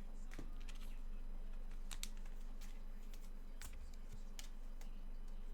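Trading cards and their packaging being handled: scattered light clicks and rustles, irregular and sparse, over a steady low hum.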